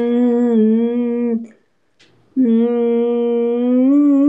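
A young man's voice holding long, drawn-out sung notes. The first breaks off about a second and a half in, and a second begins near the middle and slowly rises in pitch. The other caller likens the sound to a call to prayer.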